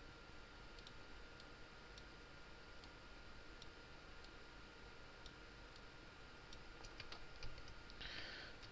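Faint, scattered clicks of a computer mouse and keyboard, roughly two a second, over low room hiss.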